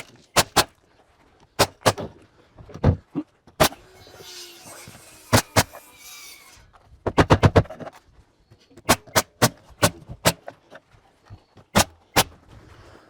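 Nails being driven into wall sheathing: about twenty sharp, irregular strikes, with a quick run of several about seven seconds in. A brief faint hiss comes between them.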